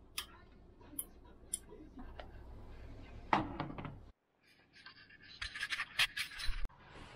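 Three sharp clicks of a floor lamp's switch being worked by hand, then a louder rustle, and after a brief gap a quick run of clicks and rustling.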